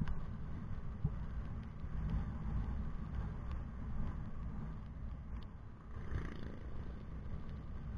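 Steady low rumble of a vehicle on the move, road and wind noise with no distinct events.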